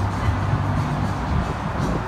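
Background music with a deep bass line.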